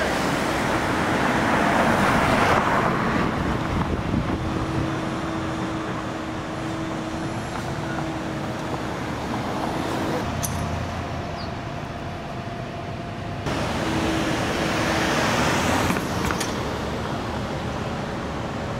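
Road traffic noise: motor vehicles running along a city street, with a faint steady hum under the haze. The sound changes abruptly a few times where the recording cuts.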